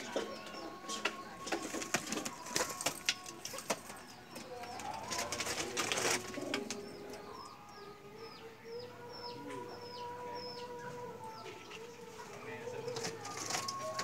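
Domestic pigeons cooing, with a long drawn-out coo through the middle. Scattered sharp taps come in the first few seconds, and a quick run of short, high chirps, about three a second, comes partway through.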